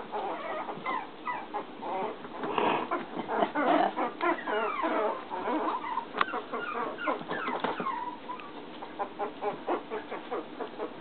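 A litter of young terrier puppies whimpering and squeaking, many short high cries overlapping one another, thinning out over the last few seconds.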